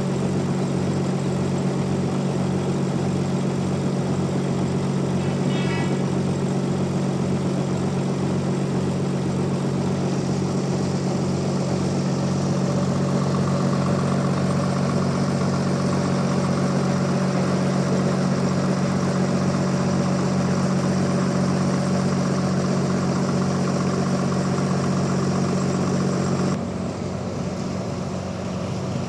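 Band sawmill running steadily with a low machine hum, a brief high squeak about six seconds in; the hum cuts off suddenly near the end.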